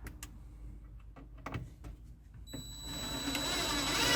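A few faint clicks, then about two and a half seconds in a power drill's motor starts and runs steadily, growing louder toward the end.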